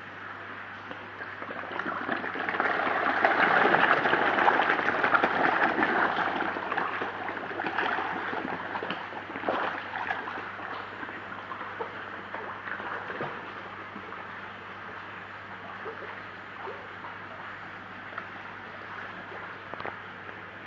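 Koi splashing and slurping at the water surface as they feed in a crowd. The splashing swells to its loudest a few seconds in, then dies down to scattered smaller splashes.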